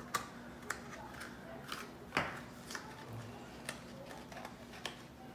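Light, scattered clicks and crinkles of a printed paperboard pillow box being handled as its bent flap is lined up and tucked inside, with the sharpest snap about two seconds in.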